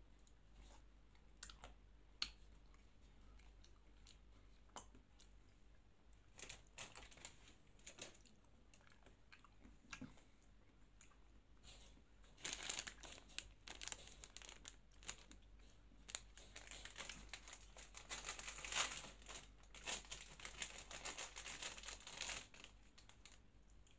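A few faint mouth clicks, then from about halfway a long stretch of crinkling and tearing as the plastic wrapper of a Magnum ice cream bar is torn open.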